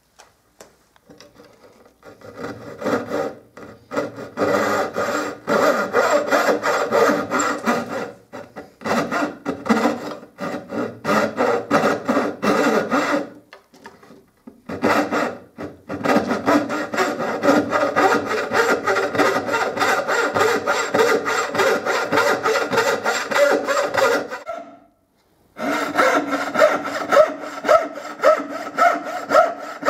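Wooden-framed turning saw cutting a curved line through a thick wooden board by hand: a steady run of back-and-forth sawing strokes, stopping briefly three times.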